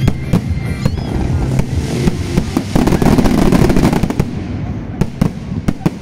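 Aerial fireworks bursting in quick succession, a mix of sharp bangs and crackling. The crackle thickens to a dense roll in the middle, and a rapid string of sharp reports follows near the end.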